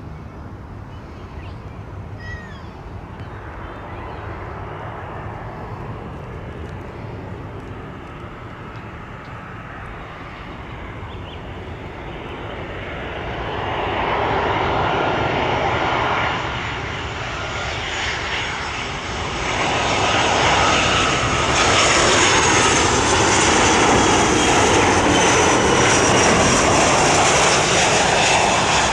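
Jet airliner's engines, growing louder about halfway through and loudest over the last third, with a high whine over the rushing noise.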